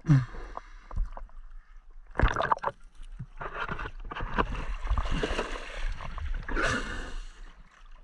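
River water splashing and sloshing as a sunken bicycle is dragged through the shallows onto rocks, with the camera at the surface. There is a sharp splash about two seconds in, then a longer churning wash in the second half.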